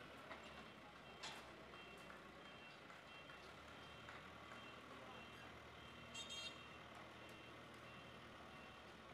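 Faint reversing alarm of a backhoe loader beeping steadily about twice a second over the low hum of its diesel engine. A brief metallic rattle comes about six seconds in.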